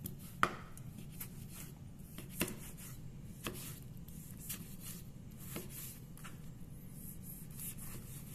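Chef's knife slicing through a tomato and knocking on a plastic cutting board: sharp, uneven taps about once a second, the loudest one near the start.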